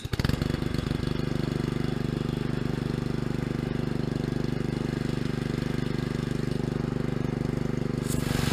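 Honda GC160 single-cylinder pressure-washer engine running steadily at speed on a newly fitted replacement carburetor. About eight seconds in, a hiss of water spraying from the wand joins it and the sound gets louder.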